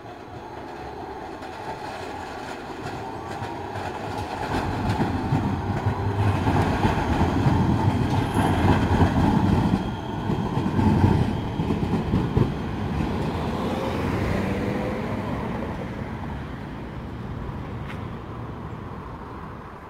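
Articulated low-floor tram passing close by over a junction of crossing rails, its wheels clattering through the crossings and points. The sound builds, is loudest mid-way, and then fades as it moves off.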